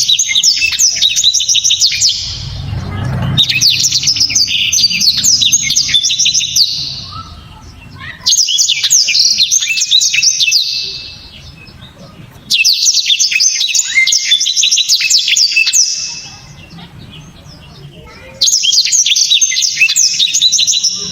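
Blackthroat (black-throated canary) singing loud, rapid phrases of sharp, dense chips and trills. About five bursts of song each last a few seconds, with short pauses between them.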